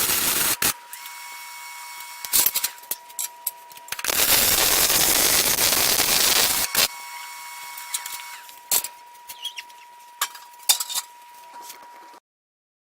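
MIG welder arcing on steel with a crackling hiss: a brief tail at the start, then a weld of about three seconds from about four seconds in. Light clinks and taps of steel between the welds. The sound cuts off abruptly near the end.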